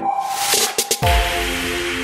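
Electronic background music: a hissing sweep with a choppy stuttering break about halfway through, then held synth chords.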